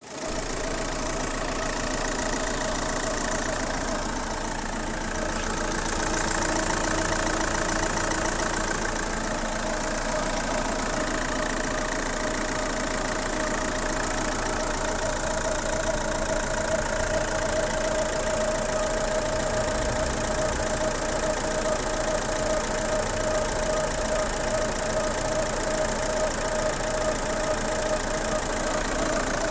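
A machine running steadily, with a constant hum.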